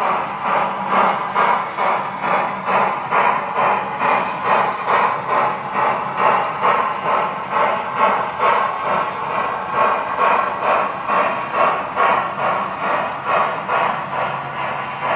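Model steam locomotive's sound decoder chuffing steadily at about three beats a second, each beat carrying a hiss.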